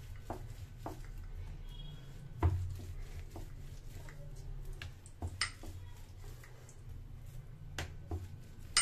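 Wooden rolling pin rolling a stuffed paratha on a marble rolling board, with scattered knocks and clicks as the pin and hands bump the board. The loudest is a low thump about two and a half seconds in. A steady low hum runs underneath.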